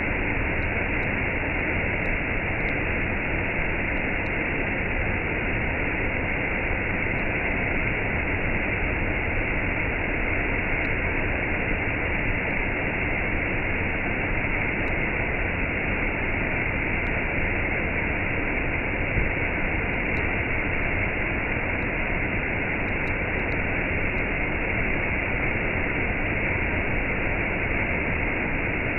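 Waterfall with a cascade: a steady rush of falling water, with no change in level.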